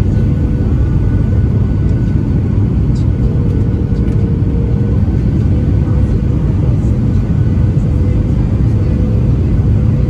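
Steady cabin noise inside a Boeing 737-800 on approach: a low, constant rumble of airflow and the CFM56-7B engines heard from a seat over the wing, with a faint steady hum above it.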